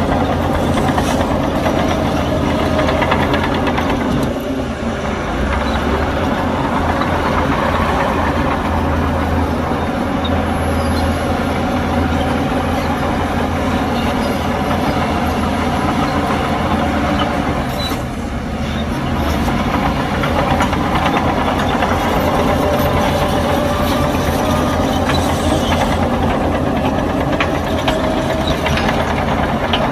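Heavy diesel engines of earthmoving machinery, a bulldozer and dump trucks, running steadily under work. The level dips briefly about four seconds in and again a little past the middle.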